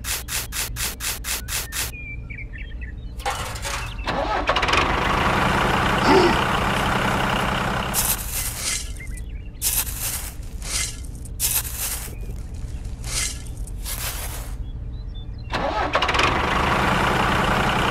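Tractor engine running with a steady low drone. A quick run of ticks comes in the first two seconds, and there are louder, noisier stretches about four seconds in and again near the end.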